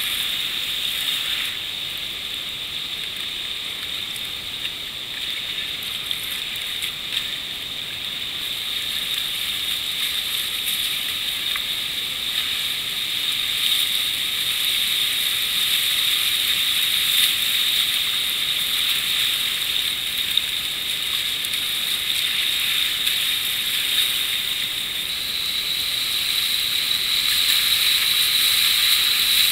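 Whitewater river rapids churning around a kayak: a steady hiss of rushing water with little bass and a few short splashes from paddle strokes. It grows louder near the end as the boat runs into rougher white water.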